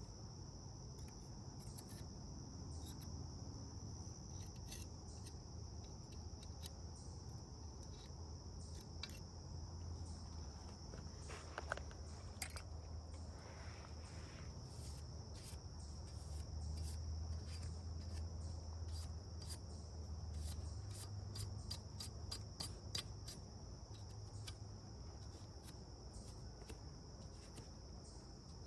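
Short, irregular metallic scrapes and clicks of a hand file worked across the rails of a chainsaw bar to square them up, over a steady high-pitched insect trill and a faint low rumble.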